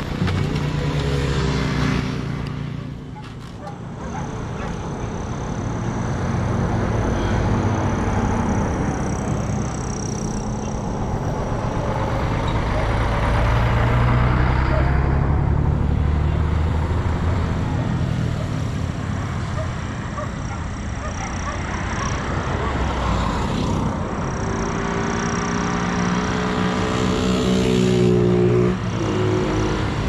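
Road traffic: motor vehicles passing one after another, their engine notes swelling and fading, loudest around the middle and again near the end.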